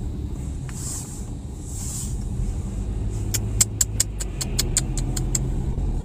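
A car driving, its engine and tyre noise a steady low hum inside the cabin. About halfway through comes a quick run of about a dozen light clicks, around six a second.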